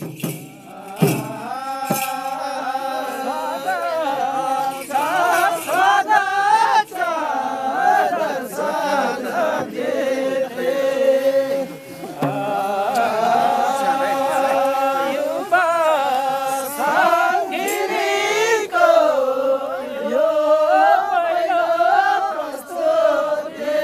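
Kauda folk dance song sung by a group of voices, a chanted melody in long phrases, with no clear drum beat under it.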